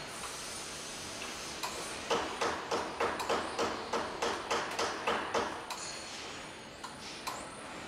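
Automatic four-roll bending machine rolling a thin metal sheet into a curved shell: a steady machine noise, with a run of sharp, evenly spaced ticks, about three a second, from about two seconds in until nearly six seconds.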